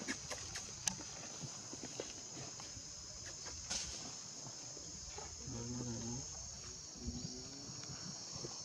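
Steady high-pitched drone of insects, with a few sharp little clicks in the first second. About five and a half seconds in, a short low pitched call or voice is heard, and a briefer one about a second and a half later.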